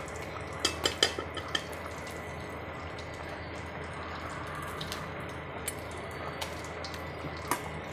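A metal spoon clinks against an aluminium cooking pot several times in the first second and a half as broth is scooped out to taste. Then a steady low hiss with an occasional faint tick.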